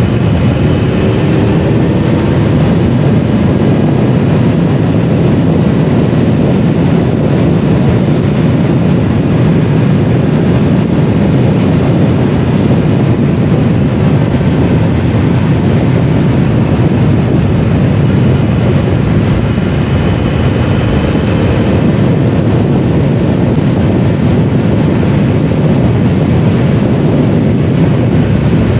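Triumph Explorer 1200 motorcycle riding at a steady road speed: the inline three-cylinder engine runs under a constant rush of wind on the microphone. The engine note rises briefly near the start and again about two-thirds of the way through.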